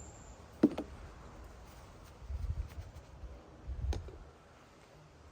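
A sharp click about half a second in, then low knocks and another click near four seconds: tools and parts being handled.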